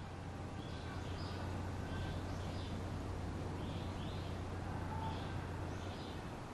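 Small birds chirping in short, high calls every half second or so over a steady low hum.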